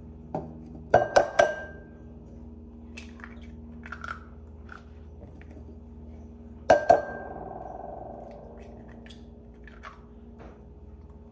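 Eggs knocked against the rim of a ceramic mixing bowl to crack them. There is a quick cluster of sharp taps about a second in and two more a little past the middle. Each leaves the bowl ringing briefly.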